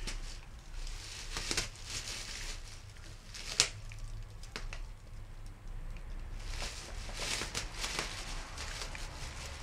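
Plastic shopping bags crinkling and rustling in repeated bursts as a cat paws and pushes its head into them, with a few sharp clicks, the loudest about three and a half seconds in.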